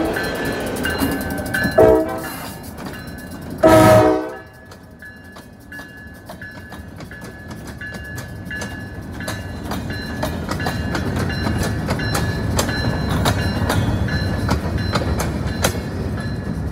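Vermont Railway diesel locomotive sounds its horn in two blasts, a short one about two seconds in and a louder, longer one about four seconds in. Then the freight train's hopper cars roll past, a steady rumble with repeated wheel clicks over the rail joints that grows louder toward the end, under a thin high whine.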